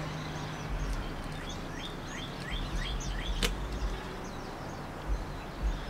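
Small birds chirping in the background: a run of short, quick chirps, busiest in the first half, over a steady low background hum. A single sharp click about three and a half seconds in.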